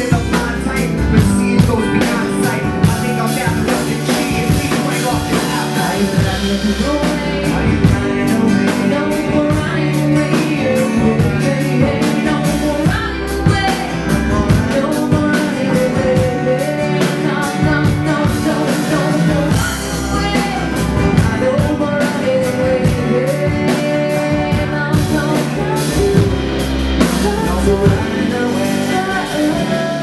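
A live band playing: drum kit, acoustic guitar and upright bass, with singing over it.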